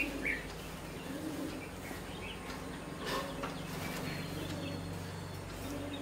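Bulbuls giving a few short, high chirps while feeding, with wing flaps as the flock takes off.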